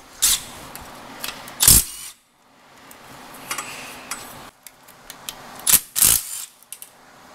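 Metal tools and engine parts clinking and knocking as a Toyota 2JZ engine is taken apart by hand: a few sharp knocks, the loudest about two seconds in and two more close together near the end, with lighter ticks and handling noise between.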